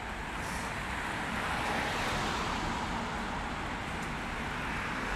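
Street traffic noise: a steady hiss of cars on the road that grows gradually louder.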